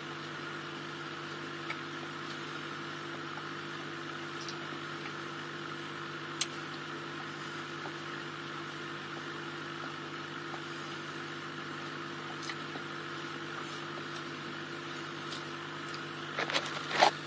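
Steady hum of an aquarium air pump with air bubbling up the tank. Sharp clicks about four and a half and six and a half seconds in, and a cluster of knocks near the end.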